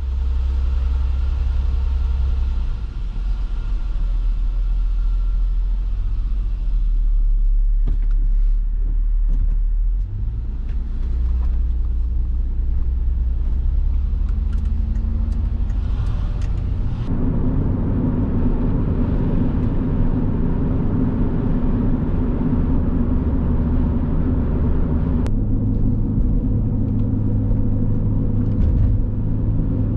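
Car driving: a steady low engine and road rumble from a 2005 Ford Escape 3.0 V6, in cut-together stretches that change abruptly a little past halfway and again near the end.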